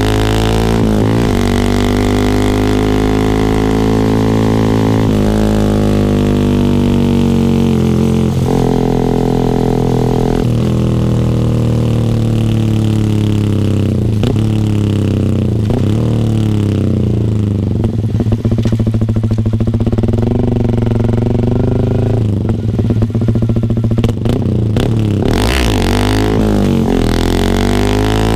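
Yamaha R15 V3's 155 cc single-cylinder engine running through an R9 GPX-SS full-system exhaust. Its pitch falls off and jumps back up several times with the throttle and gears, with a stretch of crackling pops in the middle.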